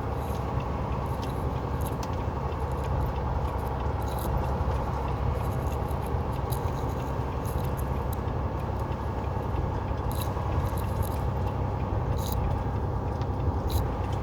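Semi truck's diesel engine and road noise droning steadily inside the cab. The truck is in ninth gear at low RPM on a downgrade at about 35 mph, with the engine holding the lightly loaded truck back. Faint light ticks come through now and then.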